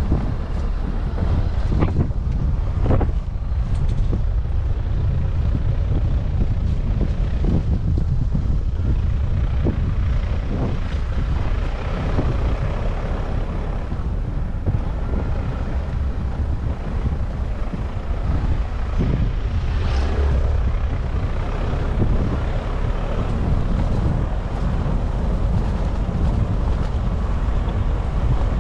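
Strong wind buffeting the microphone: a loud, steady low rumble with a few faint knocks here and there.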